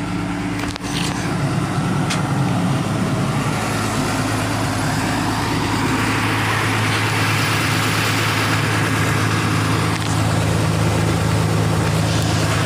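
Diesel engine of a Tata 200 crawler excavator idling steadily.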